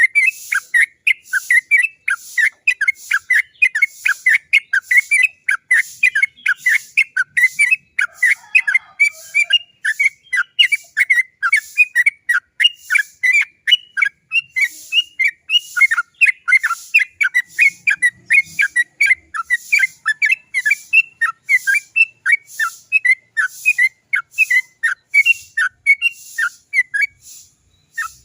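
Yellow-vented bulbul (trucukan) singing a long unbroken run of rapid, rolling "cok cok cok" notes, several a second, with a brief pause near the end.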